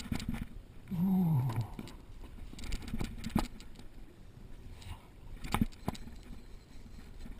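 Handling noise from a fishing rod and reel carrying the camera: scattered clicks and knocks, over a low background rush. About a second in, a short tone falls in pitch.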